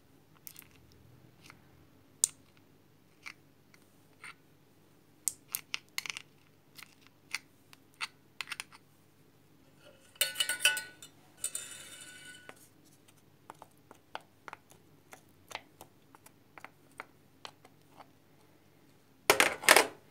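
A metal spoon tapping and clinking on kitchenware as a tablespoon of honey is added, in scattered short sharp clicks. About halfway through comes a longer stretch of scraping clatter, and near the end a louder clink.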